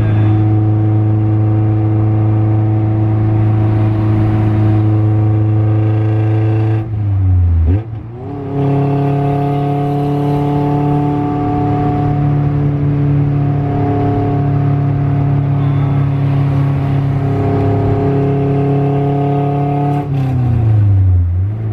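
Car engine running at steady revs. About seven seconds in and again near the end, the revs drop away briefly and then come back at a new pitch, as on a gear change.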